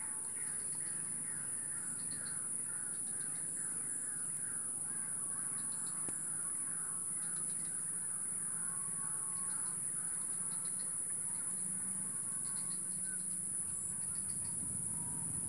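Outdoor wildlife ambience: a steady high-pitched insect drone, with a bird calling over and over in short falling notes, two or three a second, and small bursts of quick ticking now and then.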